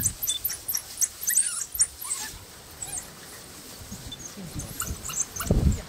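African wild dogs giving many short, high-pitched squeaks and twitters as they feed on a carcass, with a few low thumps near the end.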